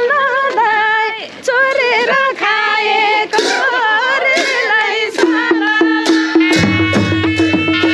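Nepali naumati baja ensemble playing traditional music: a wavering, ornamented melody line over sharp clashing strikes. From about five seconds a steady held note comes in, and a second, lower drone joins a little later.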